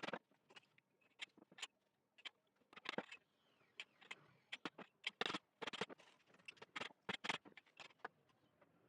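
Irregular sharp clicks and light knocks, a couple of dozen short hits scattered unevenly, some close together in quick runs.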